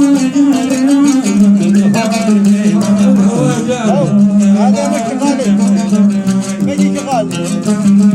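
Oud playing an instrumental introduction to a dan song: a plucked melody with sliding, wavering notes over a steady low note.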